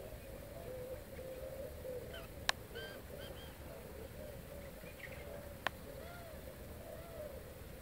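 Birds calling outdoors: a continuous wavering low call runs underneath, with short higher chirps now and then. Two sharp clicks cut in, one about two and a half seconds in and another near six seconds in.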